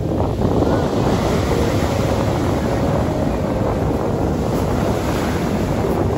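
Sea waves breaking and washing up a pebble beach in a steady, continuous surf, with wind buffeting the microphone.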